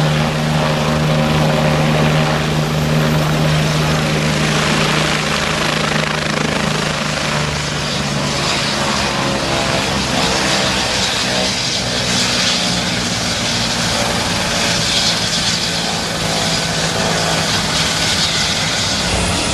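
Bell 429 twin-turbine helicopter running loud: rotor beat with turbine hiss. A strong low hum fades after about four seconds while the hiss grows.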